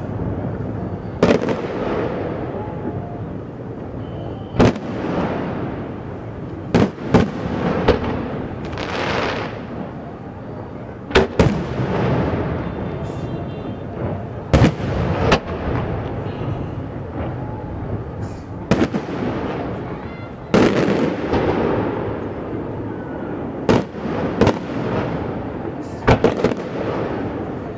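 Fireworks going off, with sharp bangs every second or two, some in quick pairs. Many bangs are followed by a fading crackle, heard over a steady background din.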